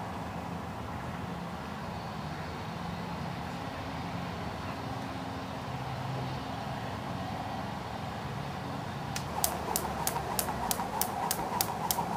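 A low background hum of distant traffic. About nine seconds in, a skipping rope starts slapping the tarmac path in a fast, even rhythm of about four to five strikes a second, with a whirring swish between strikes.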